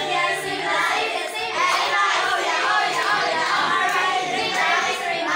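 A class of students chanting together in unison, many voices blending into one continuous chorus.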